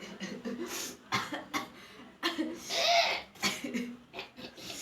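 A person with a head cold coughing and spluttering in a run of short bursts, the longest and loudest about three seconds in, brought on by tickling the inside of the nose.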